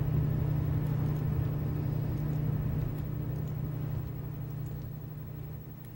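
Steady low hum, easing off over the last few seconds, with a few faint clicks.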